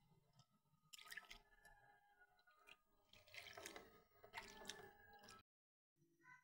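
A hand swishing and lifting split lentils in a pot of water as they are rinsed: faint splashes and drips, loudest from about three to five seconds in.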